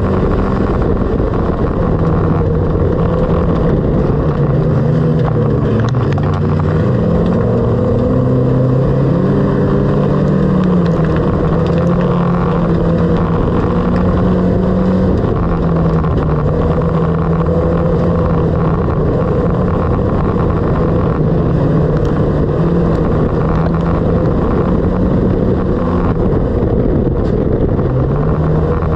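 Dirt-track race car's engine running hard, heard from inside the stripped-out cabin, its pitch stepping up and down several times as the throttle is lifted and reapplied through the turns.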